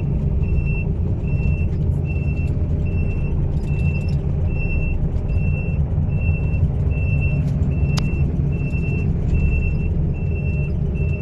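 Excavator's diesel engine running steadily while its warning alarm beeps in an even, repeating pattern, as the machine is set moving.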